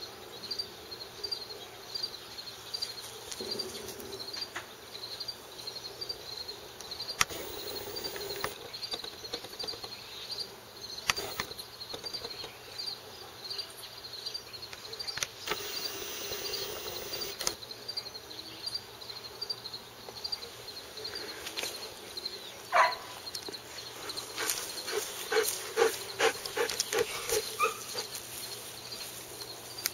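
Insect chirping steadily, a faint high chirp about twice a second, over outdoor ambience. Scattered clicks and rustles of movement on dry grass, busier in the last part.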